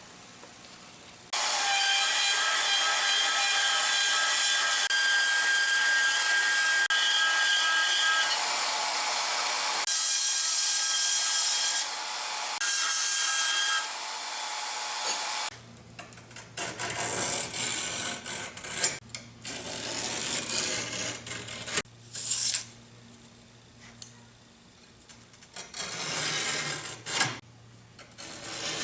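A power tool cutting steel plate, running steadily with a whine for about fourteen seconds, then stopping; after that, short irregular bursts of cutting or grinding.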